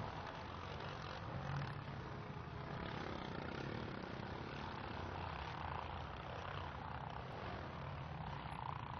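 Steady engine drone, with a low hum under a broad noisy haze.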